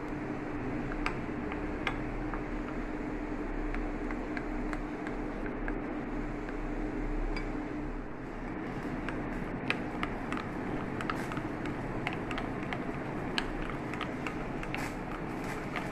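Gram-flour batter being stirred in a bowl: wet mixing with scattered light clicks against the bowl, more frequent in the second half, over a steady hum that fades about halfway through.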